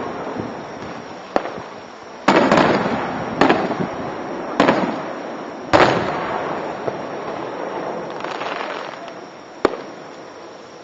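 Aerial fireworks shells bursting: a string of sharp booms about a second apart, each trailing off in a rumble, then a crackling spell and one more boom near the end. Recorded on a car dashcam microphone.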